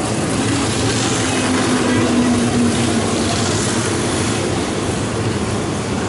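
Electric train moving along the track through a railway station, a steady running noise on the rails with a faint low hum about a second in.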